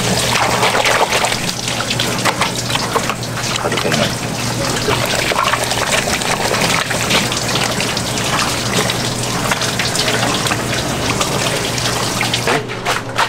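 Tap water running hard and splashing steadily into a basin.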